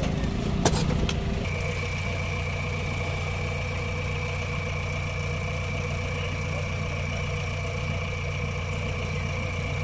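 Diesel engine idling steadily, with a thin steady whine above it: a JCB backhoe loader holding its bucket against a tipped dump truck. In the first second a spade digs into sand, with a sharp knock just under a second in.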